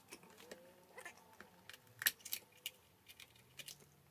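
Scattered light clicks and taps of kitchen knife work on a bell pepper: the knife and pepper on a cutting board, pieces dropped into a plastic food processor bowl, and the seed core pulled out.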